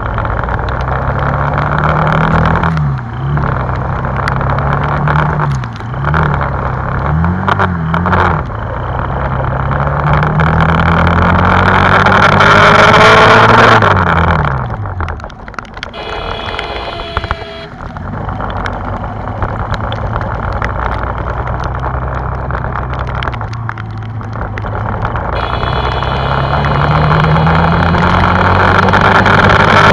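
Motorcycle engine pulling through the gears, its pitch climbing and dropping back at each shift three times in the first eight seconds, then a long rise before it falls away briefly about halfway through and picks up again. A steady rushing hiss of wind and wet road runs underneath.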